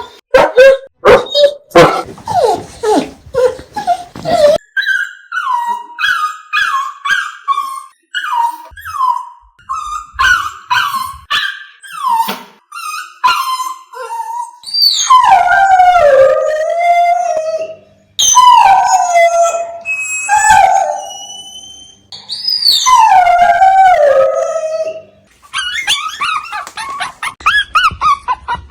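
Dogs whining and crying: a run of quick, high whimpers and yips, then three long, drawn-out howling cries that slide down in pitch, then quick whines again.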